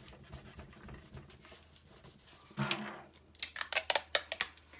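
Soft paper rustling, then, from about three and a half seconds in, a fast run of sharp crackling snaps as a strip of clear adhesive tape is pulled off its roll.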